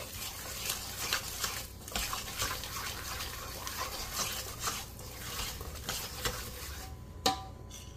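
Wire whisk stirring thick corn-flour pancake batter in a stainless steel bowl: repeated scraping, swishing strokes, about two to three a second. A sharper clink of metal near the end.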